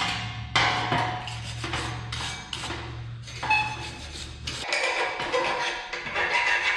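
Hand wire brush scrubbing welding slag off welded steel horseshoes, in quick rasping strokes with metallic clinks as the horseshoes knock against the steel welding table.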